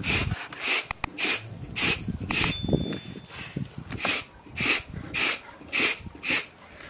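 Flour being sifted through a round hand sieve shaken back and forth over a metal tray: a rhythmic swishing hiss, about two strokes a second, with a brief pause midway.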